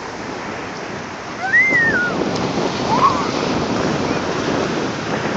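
Small surf breaking and washing up a sandy beach, a steady rush of water. A child's high-pitched voice calls out briefly about a second and a half in, and again more shortly about three seconds in.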